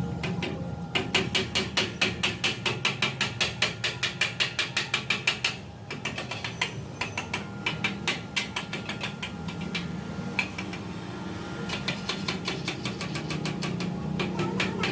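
Rapid hammer blows on steel, about five strikes a second in two fast runs with slower, lighter taps between, over a steady low hum.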